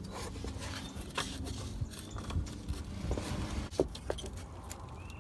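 Hands working the fuel-line quick-connect fittings under a pickup's fuel tank with a line-disconnect tool: light scraping and rustling, with a few small clicks and knocks.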